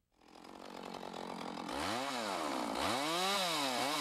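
Two-stroke chainsaw engine running. Its sound swells in over the first second or so, then the engine is revved up and dropped back three times, each rev a rising then falling whine.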